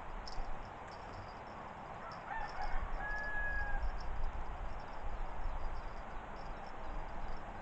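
A distant bird calling once, about two to four seconds in, with a short held tone near the end, over steady fast high-pitched chirping and a low rumble.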